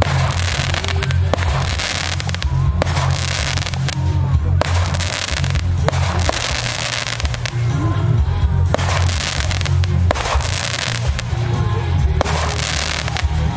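Fireworks: repeated hissing surges from ground fountains and rising shells, with a few sharp cracks as shells burst. Music with a heavy bass plays throughout.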